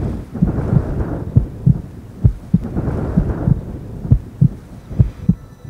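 Heartbeat sound effect: low double thumps repeating steadily, a little more than one beat a second, over a low rumble of thunder that fades out about halfway through.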